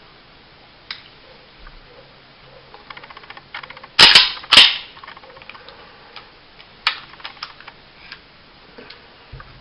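A compact 1911-style 9mm pistol being handled during reassembly: two loud, sharp metal clacks about half a second apart, near the middle, with light clicks of parts being handled before and after.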